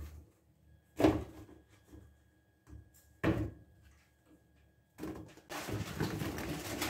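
Fried dough snacks dropped into a paper-lined plastic basket: a single thump about a second in and another a little past three seconds, then a long rustling clatter from about five seconds in as a basinful is tipped in.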